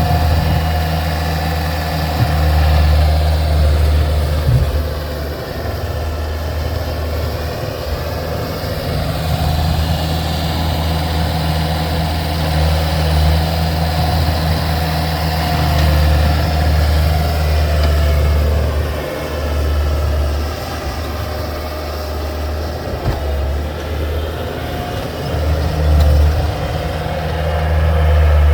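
Gehl 5635SX skid steer's engine running steadily, its level rising and falling as the machine works.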